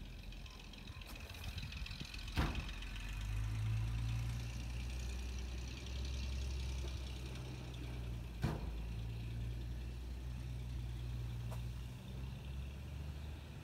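Engine of a 1936 Chevrolet truck running steadily as the truck drives slowly on its first test run in decades. Two sharp pops stand out, about two and a half seconds in and again about six seconds later.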